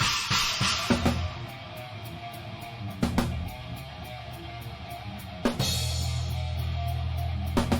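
Live rock band playing, heard from the drum kit. It opens on a loud accented hit with crash cymbal, then guitar and bass chords ring out, punctuated by a few more accented drum and cymbal hits every two to three seconds.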